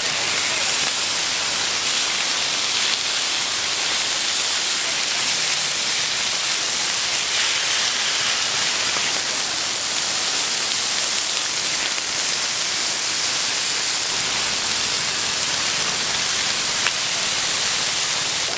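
Steady sizzling hiss of food frying in hot oil.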